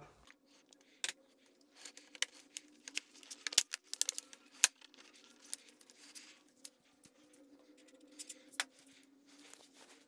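Irregular small clicks and taps as a laptop's bottom cover is fitted back on and pressed into place, over a faint steady low hum.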